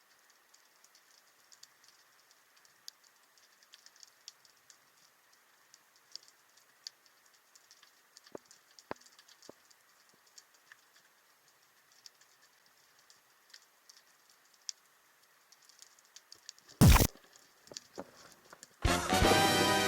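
Faint underwater crackle of scattered sharp clicks, irregular throughout. Near the end comes a single loud hit, and then a loud buzzy tone starts.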